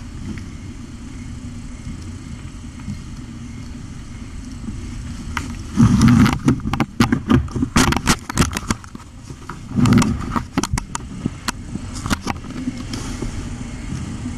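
Steady low background hum from the kitten cam, then from about six seconds in a run of loud low thumps, clicks and rubbing knocks for several seconds as the mother cat bumps against the camera and its microphone.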